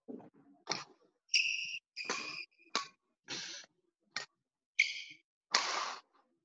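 Badminton shoes squeaking on a sports hall floor as a player moves around the court, with sharp racket hits on the shuttlecock in between: about three squeaks and three clean hits. Each sound starts and stops abruptly, as if gated.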